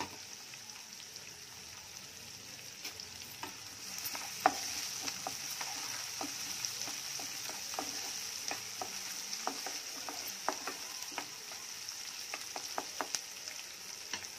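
Chopped onions and curry leaves sizzling in oil in a non-stick frying pan, with a wooden spatula stirring and knocking against the pan in a string of short sharp clicks from about three seconds in. The sizzle gets louder once the stirring starts.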